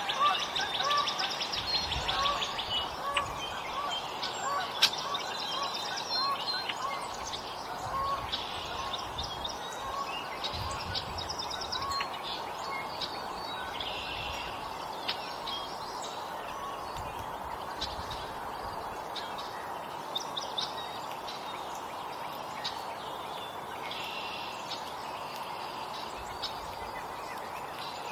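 Wild songbirds calling: a short whistled note repeated about twice a second for the first dozen seconds, with rapid high chirps and trills over it off and on throughout. A faint steady outdoor hiss runs beneath, with a few sharp clicks.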